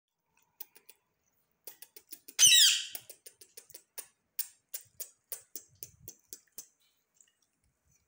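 Rose-ringed parakeet giving one loud harsh squawk with a falling pitch, about two and a half seconds in, set among a run of short sharp clicks at about three a second.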